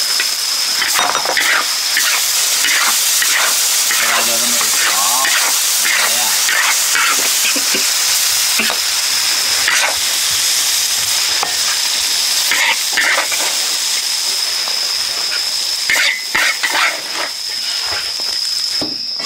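Hornets and chopped green chilies stir-frying in hot oil in a wok: steady sizzling, with a metal spatula scraping and tossing against the wok in irregular strokes. The sizzling drops away just before the end.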